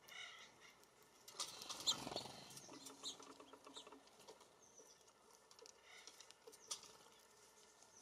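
Small songbirds at a feeder chirping faintly now and then, with a brief louder flurry of fluttering and chips about a second and a half in as a bird takes off from the feeder.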